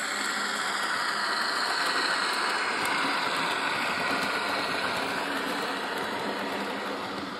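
HO-scale EMD E8A model locomotive and passenger cars rolling past on the track: a steady rushing rumble of wheels on rail, with the locomotive's DCC sound decoder playing its diesel engine sound. It swells as the train passes and eases off near the end.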